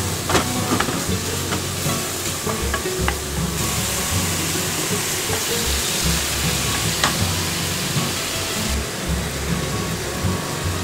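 Beef cubes and onion sizzling in a frying pan as wooden chopsticks stir them, with now and then a sharp click of the chopsticks against the pan.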